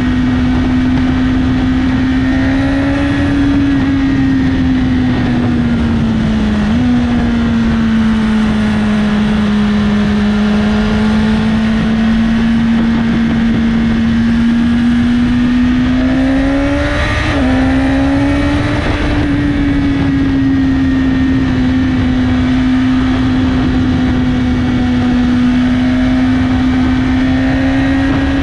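BMW S1000RR inline-four sport bike with an Akrapovic slip-on exhaust, running at a steady cruising pace under a constant rush of wind. The engine note holds almost level, dipping briefly and picking up again about seven and seventeen seconds in.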